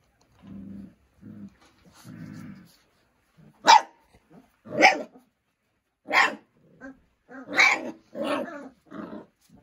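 Month-old Doberman puppies growling softly in short grumbles, then barking with four loud, sharp, high barks spread over the next few seconds, followed by smaller barks and yips.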